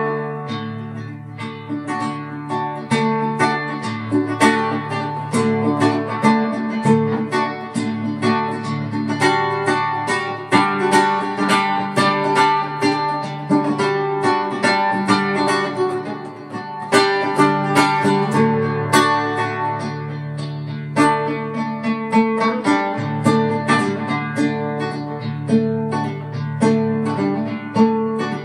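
Guitar playing an instrumental piece: a quick run of plucked notes over sustained low bass notes.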